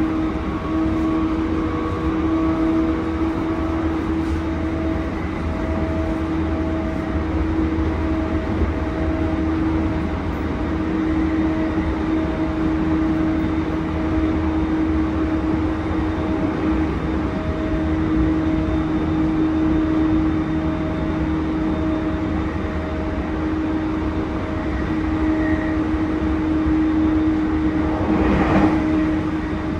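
Inside a car of an E231-1000 series electric train, fitted with its original Hitachi IGBT-VVVF traction equipment, running at speed. There is a steady low rumble of wheels on rail with a constant tone over it, and a brief louder rush near the end.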